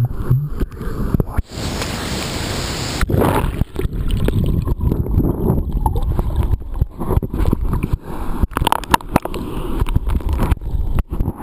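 Water sloshing and gurgling close around the camera, with low rumbling noise on the microphone and a stretch of steady hiss from about a second and a half to three seconds in.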